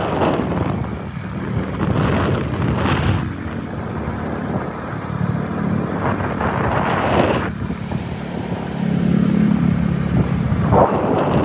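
Road and wind noise from riding along in an open vehicle, with gusts of wind buffeting the microphone every few seconds over a steady low rumble.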